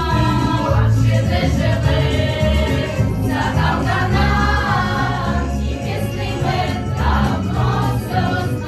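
A vocal ensemble sings a song in chorus over instrumental accompaniment with a steady low beat.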